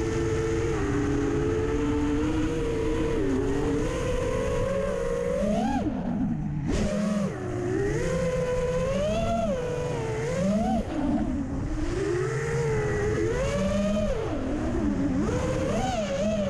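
FPV racing quadcopter's T-Motor F80 brushless motors and propellers whining, the pitch sweeping up and down again and again as the throttle is worked. A low wind rumble on the microphone runs underneath.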